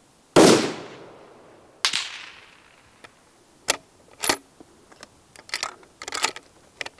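A single shot from a bolt-action 6.5 Creedmoor rifle with a long ringing tail, followed about a second and a half later by a second, fainter report. Then a run of short metallic clicks as the bolt is worked to chamber the next round.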